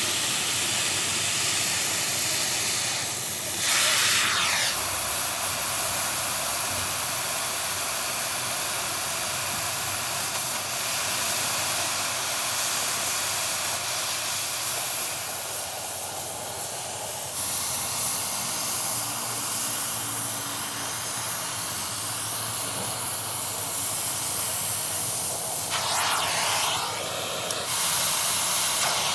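Steady, loud hissing with no clear pitch, briefly louder about four seconds in and again near the end.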